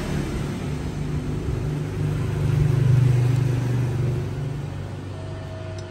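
Low engine rumble of a passing motor vehicle, growing louder to a peak about three seconds in and then fading away.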